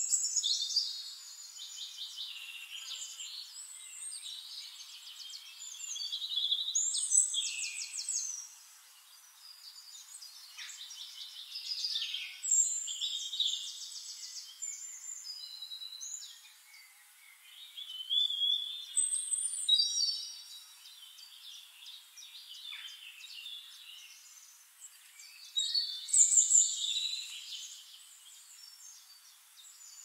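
Songbird singing: loud phrases of fast, high warbling and trilling song about every six or seven seconds, with quieter chirping between.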